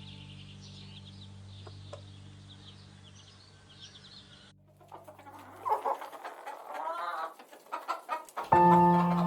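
Chickens clucking in short, irregular calls, starting about halfway through. Before them, soft sustained music with faint bird chirps fades out, and louder music comes in near the end.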